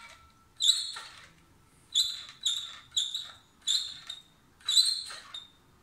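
Truck accelerator pedal position sensor assembly squeaking as it is pressed and released over and over, about seven short squeaks, around two a second in the middle stretch.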